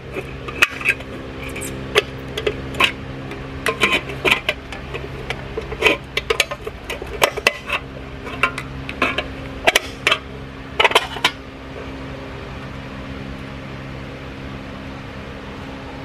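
Wheel center cap on a 1999 Ford F-150's alloy wheel being pried off with a screwdriver: a run of sharp clicks and clinks for about eleven seconds, over a steady hum.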